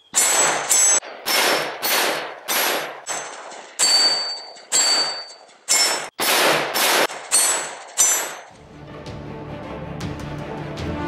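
A Glock 21 pistol converted to .460 Rowland firing about a dozen full-power shots in quick succession, some followed by a brief ringing from the hit steel targets. About eight seconds in, the shooting stops and background music begins.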